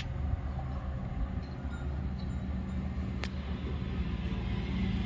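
A vehicle engine running with a steady low rumble that grows louder near the end, and a single sharp click about three seconds in.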